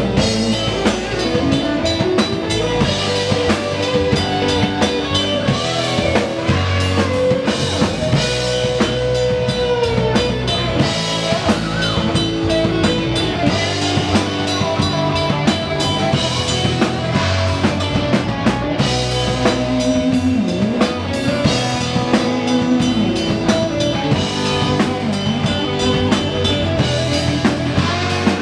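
Heavy metal band playing live: distorted electric guitar over a full drum kit with bass drum.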